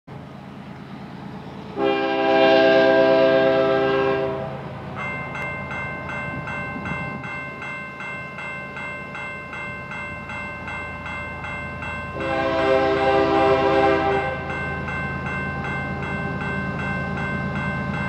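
Canadian Pacific diesel locomotive air horn sounding two long chord blasts, with the low rumble of the approaching locomotives beneath. About five seconds in, a grade-crossing warning bell starts ringing rapidly and keeps on.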